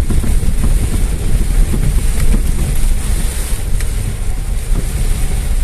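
Inside a car driving slowly over a rough, wet dirt road in heavy rain: a steady low rumble from the engine and tyres, with rain on the roof and windscreen hissing over it.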